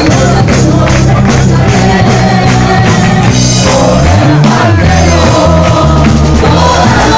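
Loud, upbeat worship music: singing over a bass line and a steady percussion beat.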